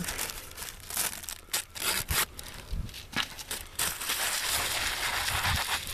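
Wax paper crackling and crinkling as it is crumpled into a ball by hand, in many sharp crackles that settle into a steadier rustle for the last two seconds. Crumpling softens the paper so that it stays quiet when flattened out as a trap pan cover.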